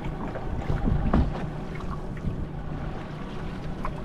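Boat motor running steadily at trolling speed, a low drone with a few light knocks over it.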